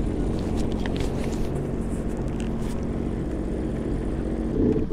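Sea-Doo GTX 170 jet ski's Rotax three-cylinder engine running at low idle speed, a steady even hum. It swells briefly and then cuts off near the end.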